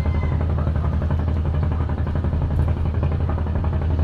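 Heavy rain falling steadily on an open umbrella, a dense pattering over a constant low rumble.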